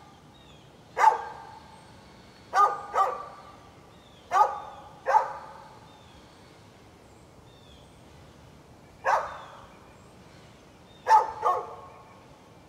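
A dog barking in single barks and quick pairs, about eight in all, with a pause of several seconds in the middle and a short echo trailing each bark.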